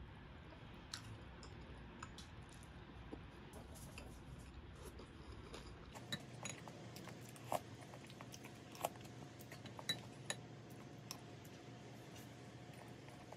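Light clinks of chopsticks and wooden skewers against ceramic bowls and plates, a handful of short sharp taps in the second half over faint room tone.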